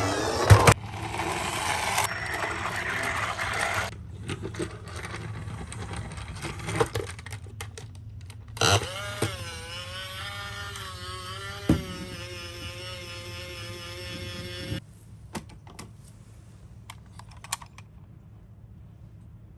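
Plastic toy ambulance minicars clattering and rolling, with scattered light clicks. About halfway through, a toy's electronic siren tone comes on, wavers, holds one steady pitch for several seconds, then cuts off suddenly.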